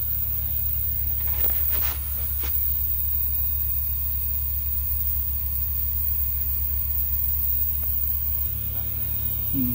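A steady low hum, with a few faint clicks about one and a half to two and a half seconds in.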